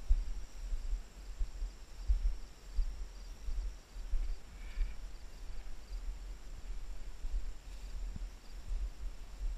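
Low thumps and rumble from a body-worn camera jolting with each of the handler's steps through long grass, with wind buffeting the microphone. A faint steady high hum sits underneath.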